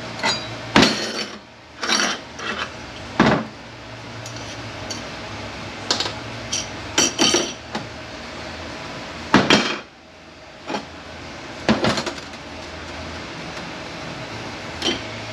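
Metal clutch drum and piston parts of a Mercedes 722.9 automatic transmission clanking and clinking as they are handled and set down during disassembly: about a dozen separate knocks, a few with a short metallic ring.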